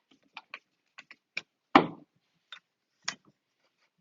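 Irregular clicks and knocks from handling the telescoping pole section and its clamp, with one louder knock just under two seconds in.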